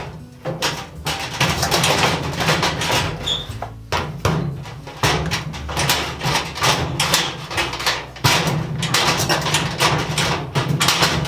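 Metal filing cabinet drawer being worked open and shut, a continuous grating, clattering scrape of metal on metal. The bent latching bar, damaged when the lock was jimmied, still drags inside and causes this horrible noise.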